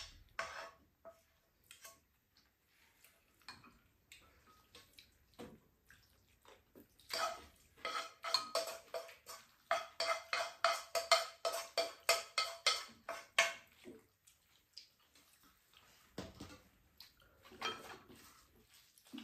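Chopsticks scraping and clinking against a frying pan and bowls as food is served out of the pan, a few scattered clicks, then a quick run of ringing clinks for several seconds around the middle.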